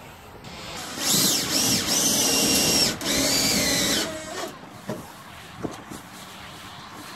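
Cordless drill-driver running in two bursts, about two seconds and then one second, its whine rising as it spins up and dropping as it stops, driving a screw to fix a 4 mm laminated plywood side-lining panel.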